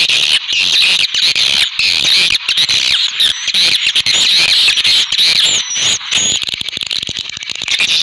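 A dense, continuous chorus of many small birds twittering high and fast, with one whistled call rising and falling about two-thirds of the way through.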